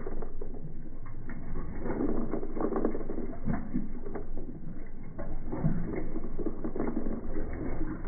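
Whirlpool 7LSR8244FQ1 top-load washer's agitator drive, the plastic hub and toothed ratchet ring around the centre shaft, working with a low rumble and irregular clacking and clicking. The audio is slowed down along with the picture, so it sounds deep and drawn out.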